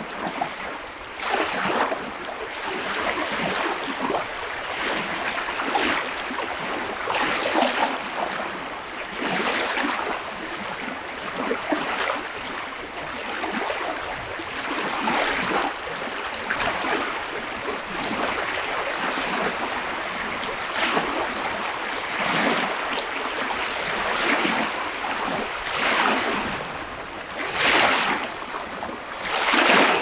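Gentle sea surf: small waves breaking and washing up a beach, rushing in irregular surges every one to three seconds.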